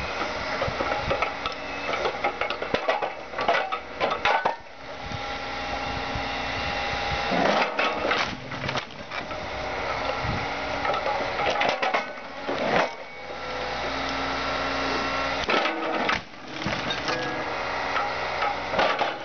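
Excavator crushing a scrapped Volkswagen Jetta: metal crunching, creaking and clanking over the machine's running engine and hydraulics, with frequent sharp knocks.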